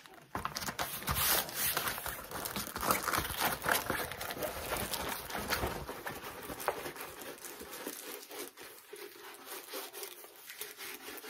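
Crinkling and rustling of a diamond painting canvas and its plastic covering being handled and rolled up. The sound is busiest for the first several seconds and quieter near the end.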